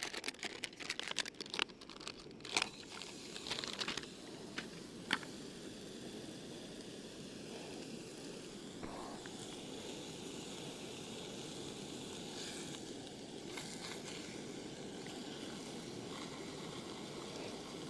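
A plastic packet crinkling and tearing open in the first few seconds, then bacon medallions frying in a small non-stick pan over a gas stove with a steady sizzle.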